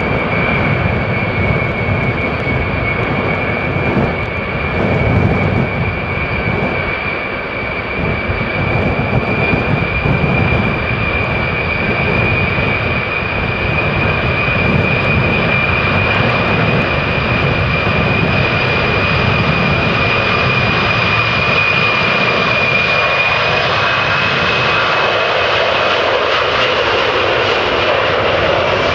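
Ilyushin Il-76TD's four turbofan engines running loud and steady with a high whine over the jet noise; near the end the whine edges up in pitch and the sound grows fuller as power comes up.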